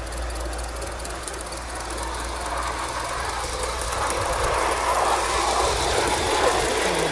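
Gauge one live-steam GWR tank engine and its coach running along the track, with a steady hiss of steam and fine rapid clicking of wheels on rail joints, growing louder about halfway through as the train comes close.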